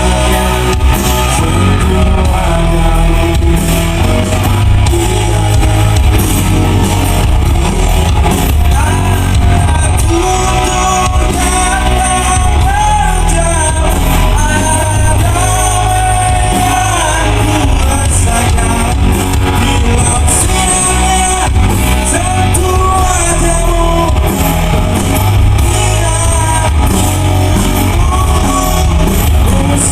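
Live rock band playing loudly with a singer's melody over a heavy, steady low end, heard over a concert PA in a large hall.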